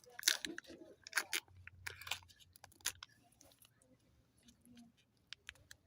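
Close-up crinkling and crunching from handling and opening Kinder Joy eggs, with a few louder crackles in the first three seconds, then only scattered small clicks.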